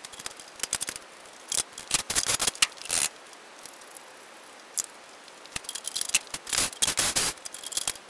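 Quick clicks, scrapes and rattles of plastic and metal parts being handled and fitted as a lawn mower's engine is put back together. They come in bunches with short pauses in between.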